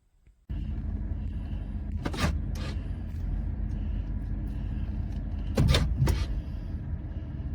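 Steady low rumble of a running vehicle, with a few short sharp noises, two about two seconds in and two about six seconds in.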